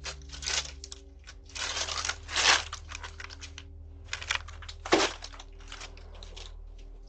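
Irregular rustling and scraping, with louder bursts about half a second in, from one and a half to two and a half seconds in, and at five seconds, over a faint steady hum.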